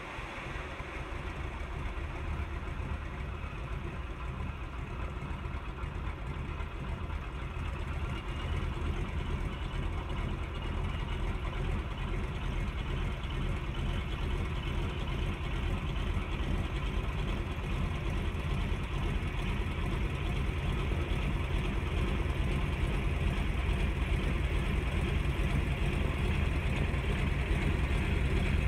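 de Havilland Canada DHC-2 Beaver floatplane's nine-cylinder radial engine and propeller running at low power as it taxis on the water, growing steadily louder.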